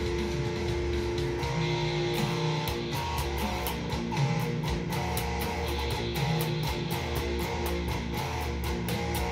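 Electric guitar playing a riff. From about two seconds in the picking settles into a fast, even rhythm.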